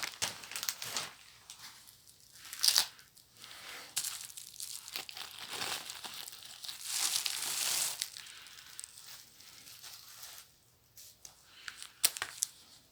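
Book packaging being torn open and crumpled by hand, in irregular rustling bursts, with a few sharp clicks near the end.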